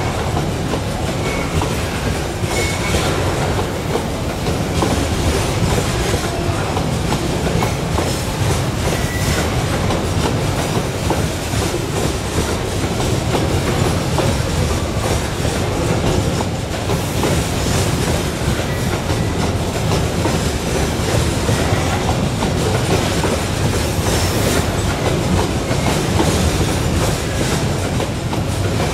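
Coal hopper wagons of a long freight train rolling past steadily, wheels clattering on the rails, with a few brief faint wheel squeals.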